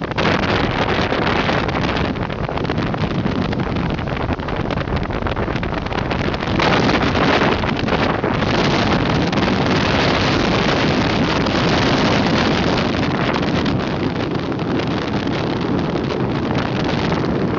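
Hurricane wind blasting across the microphone: a loud, dense rushing noise that swells and eases in gusts, strongest about seven seconds in.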